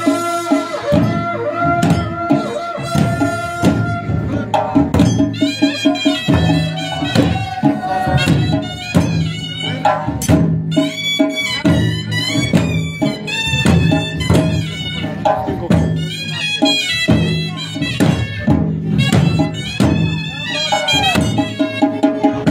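Traditional Pahari folk music played live: drums beating a fast, steady rhythm under a wavering, pitched melody.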